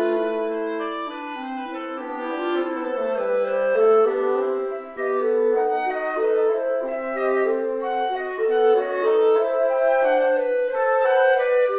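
Instrumental background music, with several held notes sounding together in a moving melody and no speech.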